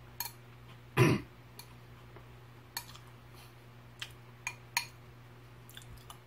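A man clears his throat once, sharply, about a second in. After that come scattered soft clicks of a metal spoon in a ceramic bowl of milk-soaked hardtack cereal, over a low steady hum.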